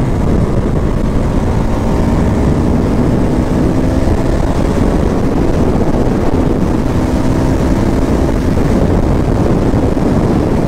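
Motorcycle engine running while riding, its note climbing gradually over the first few seconds, with heavy wind buffeting on the microphone.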